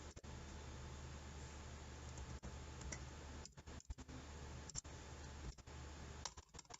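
Faint, scattered computer keyboard key clicks, typing commands into the Python shell, over a low steady hum.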